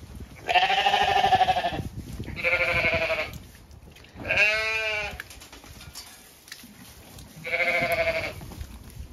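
Zwartbles sheep bleating: four loud, wavering bleats about a second each, the third bending in pitch.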